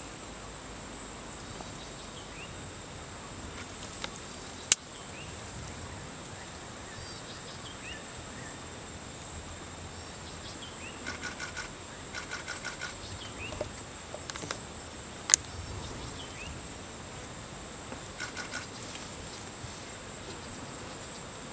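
Steady high-pitched insect chorus, a faintly pulsing buzz, with scattered short bird chirps and two sharp clicks, about five and fifteen seconds in.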